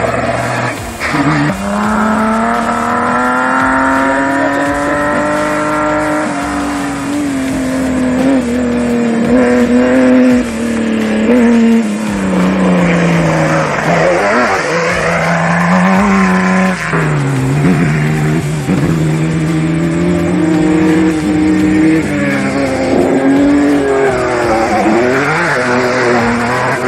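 Off-road race vehicle engine running hard and loud. Its pitch rises and falls repeatedly as the driver works the throttle and shifts.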